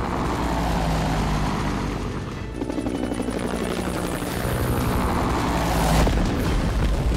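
Cartoon helicopter sound effect: a steady rotor flutter and engine hum over a deep rumble, with background action music.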